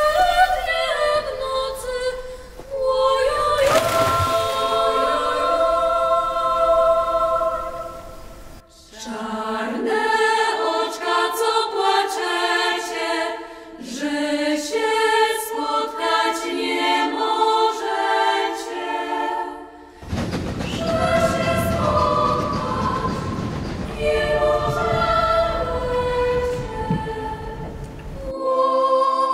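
Women's folk choir singing a wordless melody in close harmony, without instruments. The singing breaks off and restarts twice. For its last stretch a low rumble runs under the voices.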